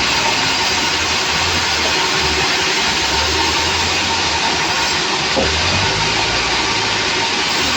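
Sawmill machinery running: a loud, steady hiss-like roar of the saw, with a low engine hum underneath that swells and fades.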